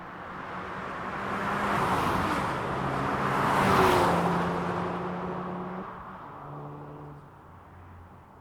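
Volkswagen Golf GTI driving past: its engine and tyre noise build up, peak about four seconds in, then drop in pitch and fade as the car moves away.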